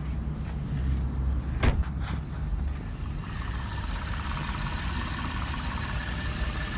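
Lexus GS300's V6 engine idling steadily, now running after a crank-but-no-start fault. A single sharp click comes about a second and a half in, and a faint steady whine joins about halfway through.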